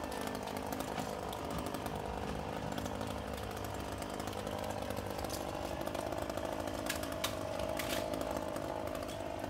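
An engine running at a steady speed, its pitch edging up slightly about six seconds in, with a few sharp clicks around the eighth second.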